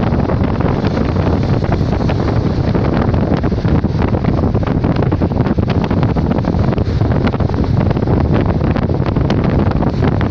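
Strong wind buffeting the microphone in a steady low rumble, with the wash of small sea waves breaking and running up a sandy shore beneath it.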